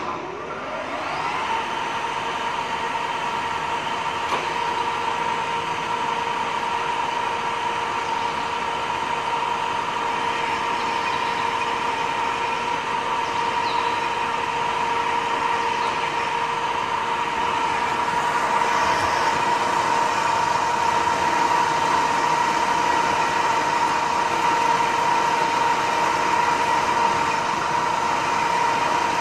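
Old centre lathe switched on: motor and gear drive spinning up, then running steadily with a constant high whine.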